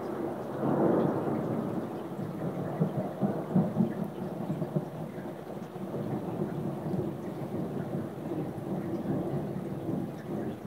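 Thunder rumbling long and low from a violent thunderstorm, swelling about a second in and again around four seconds.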